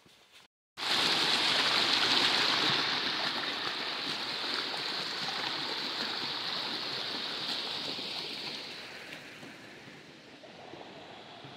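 Shallow river water rushing over flat rock slabs as a steady noise. It starts abruptly about a second in, then fades gradually toward the end.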